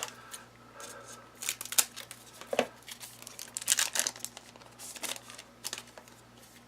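Trading cards and a foil card-pack wrapper being handled, crinkling and rustling in irregular bursts, the loudest about two and four seconds in.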